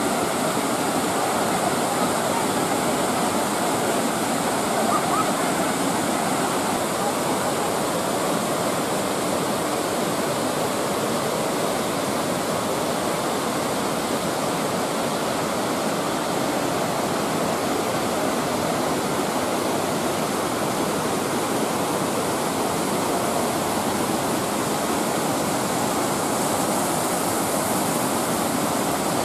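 Steady rush of a cascading waterfall: water pouring over stepped rock ledges into pools and a stream.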